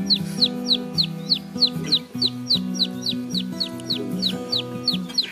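A chick peeping over and over, short falling peeps about three or four a second, over background music with held low notes.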